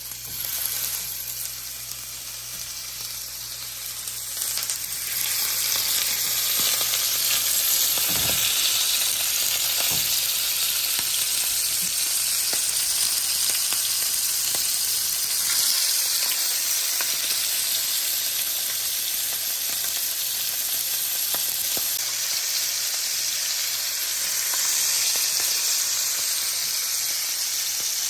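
Bacon-wrapped dove breasts frying in a pan of hot olive oil: a steady sizzle that grows louder about four to five seconds in, then holds.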